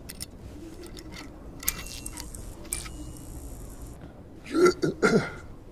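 A man clearing his throat twice, two short vocal sounds near the end, over quiet outdoor background with a few faint clicks.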